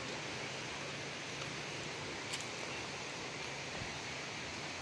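Steady rushing of a river, with one faint click about two and a half seconds in.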